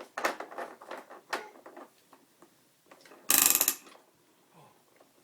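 Plastic clicking and clattering from a baby walker as the baby moves and plays in it, with one loud burst of rapid rattling clicks about three seconds in.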